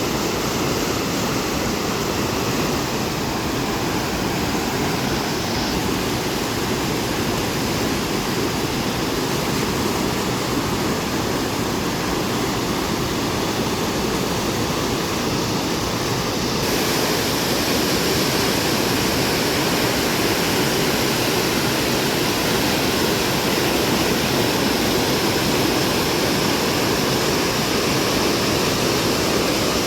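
Swollen, fast-flowing floodwater rushing in a stream after heavy rain, a loud steady roar of water that gets a little louder and brighter about halfway through.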